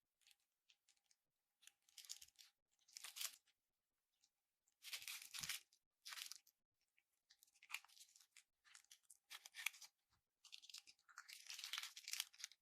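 Slime being squeezed and pulled apart by hand, giving irregular bursts of crackly, hissing noise a second or so apart, with a longer stretch near the end.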